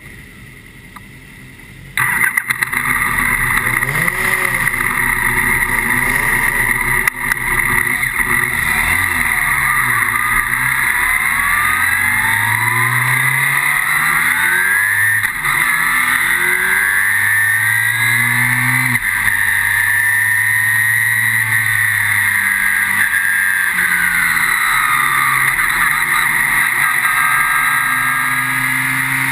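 Formula BMW single-seater's 1.2-litre four-cylinder engine heard from the cockpit, the car pulling away and revving up through the gears, its pitch rising and falling again and again. It comes in loud about two seconds in.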